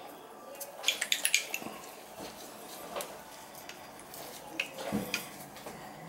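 Small brass valve parts clinking and ticking against each other and the valve body: a quick run of light clicks about a second in, then a few scattered taps, as the seats are taken out of a tub/shower valve for checking.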